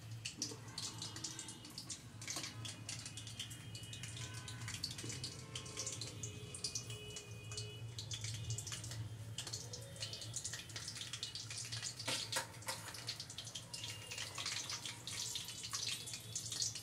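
Donut dough deep-frying in hot oil in a pan: a steady crackling sizzle full of small pops, over a low steady hum.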